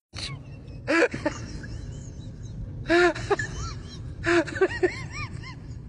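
Dog whining and yelping in short cries that rise and fall in pitch, with louder yelps about a second in, around three seconds and just after four seconds, then a quick run of smaller whines.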